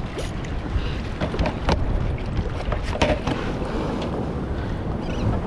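Wind rumbling on the microphone, with a few short sharp knocks about a second and a half and three seconds in.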